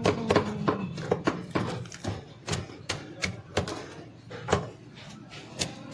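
A knife striking a cutting board as fish is cut up, in irregular sharp knocks roughly two a second.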